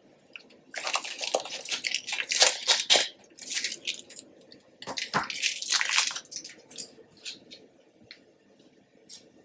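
A plastic tub of shredded Parmesan being handled, crinkling and rustling in several bursts over the first six seconds or so, then a few light clicks and taps.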